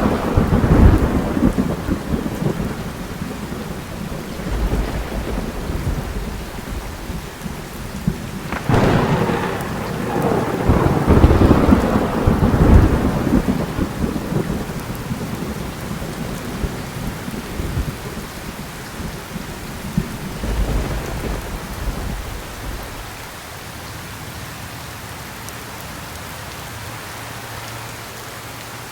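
Thunderstorm with heavy rain. A thunderclap just before the start rumbles away over the first couple of seconds. A sharp crack about nine seconds in rolls into rumbling that lasts several seconds, and a fainter rumble follows around twenty seconds, leaving only steady rain.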